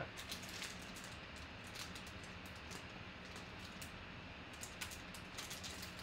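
Faint scattered clicks and crinkles of a plastic card holder and a thin clear protective film being handled and peeled off, over a faint steady hum.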